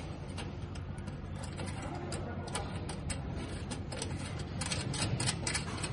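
Metal coupling ring of a three-pin aviation (circular) connector being screwed by hand onto its panel socket, giving a string of small, irregular clicks and scrapes.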